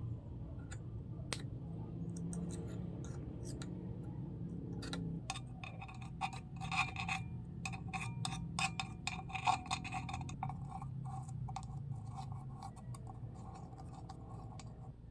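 Small metal parts of a record changer's spindle thrust bearing being handled and greased: light clinks, clicks and scraping, busiest in the middle stretch, over a steady low hum.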